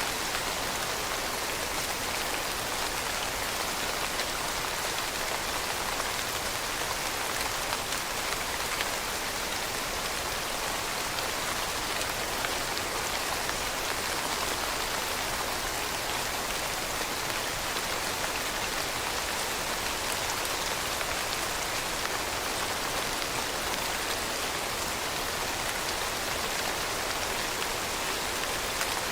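Steady rainfall with many fine drops pattering on a surface, an even hiss without pauses or thunder.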